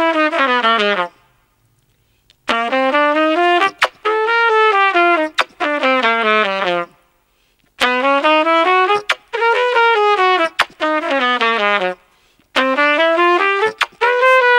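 Trumpet playing the six-note 'trumpet kiss' pattern: runs of quick notes that climb and then fall, in phrases a few seconds long broken by pauses of about a second. Sharp clicks sound here and there among the notes.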